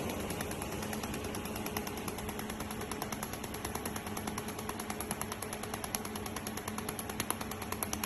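Pulsed YAG laser welder firing on aluminium: a rapid, even train of sharp ticks, several a second, growing a little louder near the end, over the machine's steady hum.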